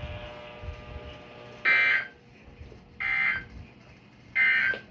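Three short bursts of SAME digital data tones from a weather radio alert, about 1.3 seconds apart: the end-of-message code that closes an emergency alert broadcast.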